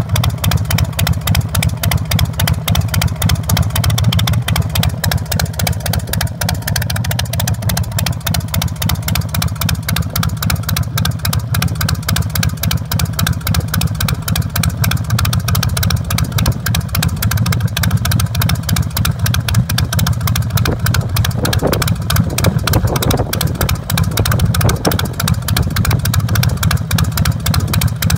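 2005 Big Dog chopper's carbureted 117 cubic inch S&S V-twin idling steadily through its Paul Yaffe 2-into-1 SuperTrapp exhaust, a rapid, even run of exhaust pulses.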